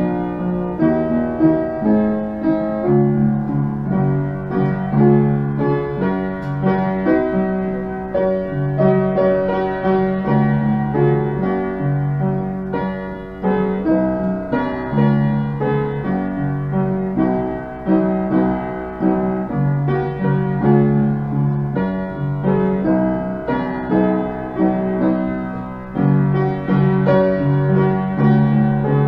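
Piano playing a hymn tune in steady chords, with notes changing about once a second.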